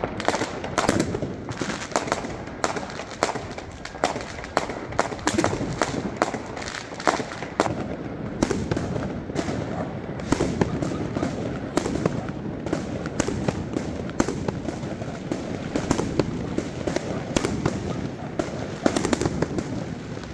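Many aerial fireworks going off at once: a dense, irregular string of sharp bangs and crackles with no break.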